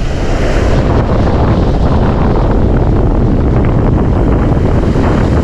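Wind blowing hard on the microphone as a steady, loud rumble, over the rush of surf washing up the beach.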